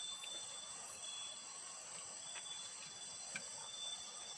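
Chorus of night insects trilling steadily at several high pitches, with a few faint clicks, the clearest about three seconds in.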